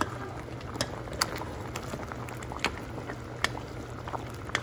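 Beef stew simmering and bubbling in an enamelled pot while a metal ladle stirs it, clinking sharply against the pot about six times, over a steady low hum.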